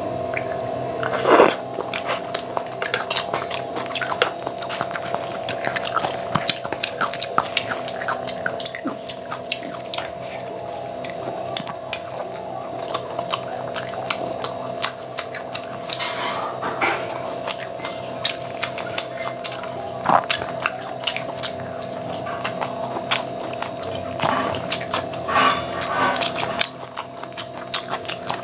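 Close-miked chewing and wet mouth sounds of someone eating paneer chilli and puri with curry: irregular smacks, squelches and small clicks. A steady hum runs underneath.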